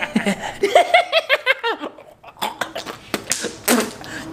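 Laughter in a quick run of short repeated bursts, giggling and snickering. In the second half it gives way to a few scattered clicks and rustles.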